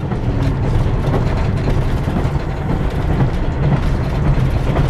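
Super Hakuto diesel express train running, heard from inside the passenger car: a steady, loud rumble of the ride with a low, even hum.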